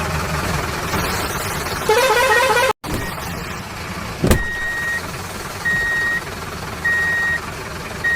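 Toy construction vehicle sound effects: an engine rumble, then a short warbling horn tone that cuts off suddenly. After a click, electronic beeps sound about once a second, like a reversing alarm.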